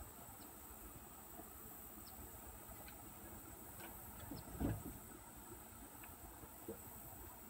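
Steady high-pitched insect chorus with a few faint short chirps, and a low thump about four and a half seconds in.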